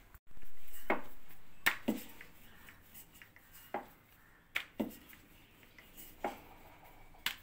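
Rolling pin clicking and knocking against a round rolling board as dough is rolled out, about eight sharp knocks, some in quick pairs.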